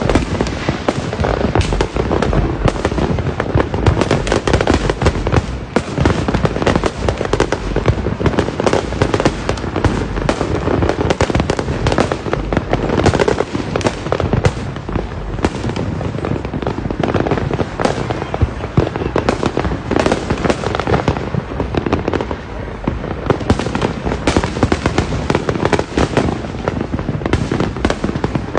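Many fireworks going off at once: a dense, unbroken barrage of overlapping bangs and crackling, with no pauses.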